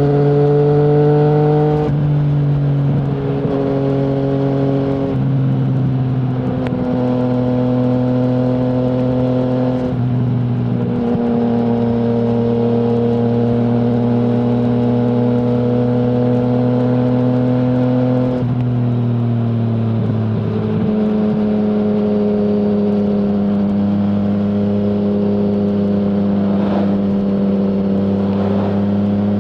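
2020 Yamaha MT-09's three-cylinder engine through an Akrapovic full-system exhaust with no dB killer, running at steady cruising revs. The engine note steps up or down about five times, every few seconds.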